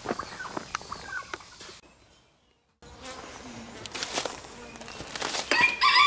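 Honey bees buzzing around the hive, with chickens clucking and a rooster starting to crow near the end. The sound cuts out completely for about a second, around two seconds in.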